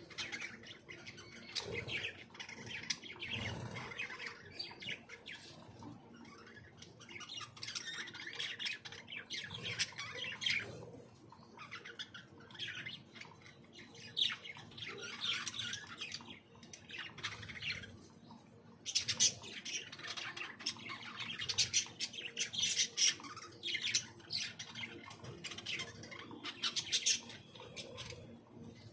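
A flock of aviary birds chirping and squawking, many short calls overlapping throughout.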